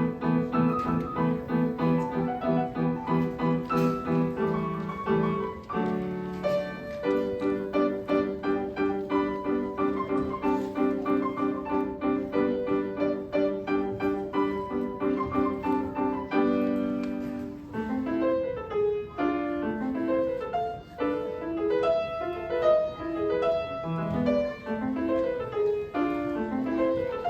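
Solo piano playing a classical piece: steady repeated chords for most of the first two thirds, then a change to flowing broken-chord figures that move up and down.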